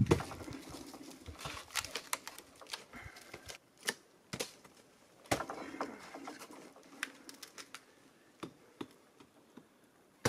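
Irregular clicks, knocks and scrapes of climbing spikes biting into black locust bark and hands gripping the trunk as a man climbs.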